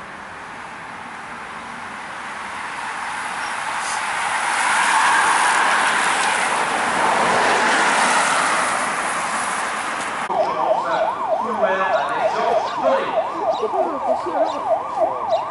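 A rushing road noise of tyres and passing traffic swells and then eases off. About two-thirds of the way through, a fast yelp siren cuts in abruptly, sweeping up and down three or four times a second.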